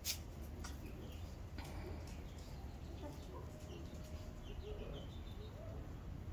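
Backyard chickens clucking quietly in short scattered calls, with one sharp click just after the start.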